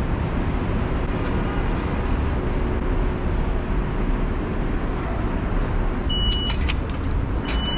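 Steady low rumble of city traffic around a street-level station. About six seconds in, the MetroCard vending machine gives a short high beep with a few clicks, then beeps again, held, near the end, as it prompts for a credit card to be dipped.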